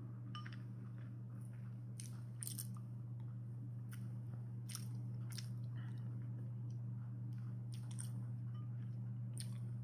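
A person chewing sticky glutinous rice dumpling (zongzi) close to the microphone, with scattered small wet mouth clicks over a steady low hum.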